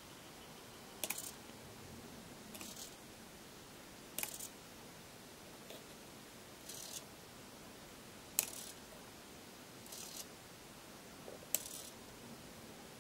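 Mechanisms of a 7mm scale model GWR semaphore stop signal and ground signal being worked on and off: four sharp clicks, each followed a second or so later by a short, soft, high whirring rasp, as the stop arm and ground disc move.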